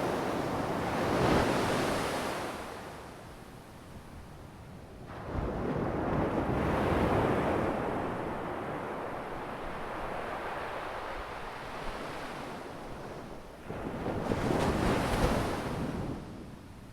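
Ocean waves breaking and washing on the shore, in three surges with quieter lulls between; the second comes in suddenly about five seconds in, and the last about three seconds before the end.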